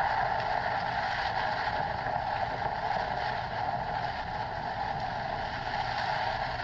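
Steady rain from a binaural (holophonic) sound demo: an even, constant hiss that eases slightly over the few seconds.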